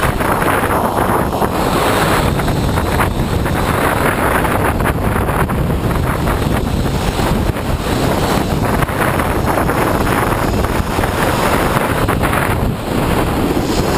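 Wind buffeting a camera mounted on the trolley pole of a moving Sydney R-class tram, mixed with vibration carried up the pole from the tram: loud, continuous noise with a constant fine rattle.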